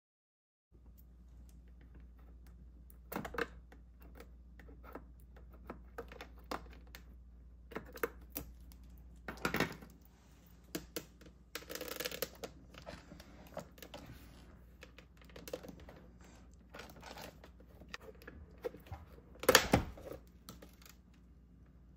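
Hands handling a toy and its packaging: irregular small clicks, taps and rustles over a low steady hum, with two louder knocks, one about halfway and one near the end.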